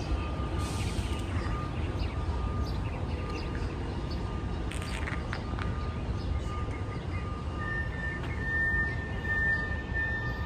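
Outdoor ambience on an elevated subway platform: a steady low rumble with a few short bird chirps. About three-quarters of the way through, a steady high whine sets in and holds.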